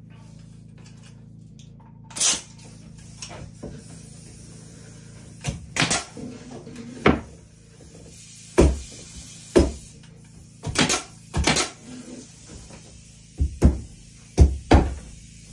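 Pneumatic nail gun firing nails into wooden wall boards: about a dozen sharp shots at irregular intervals of a second or so, some in quick pairs.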